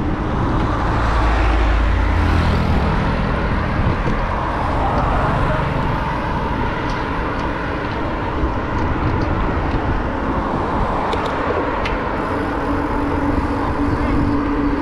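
Steady road and wind noise of riding along a road in traffic, with vehicle engine noise throughout. A heavier engine rumble comes about one to three seconds in, and a steady engine hum from about twelve seconds on.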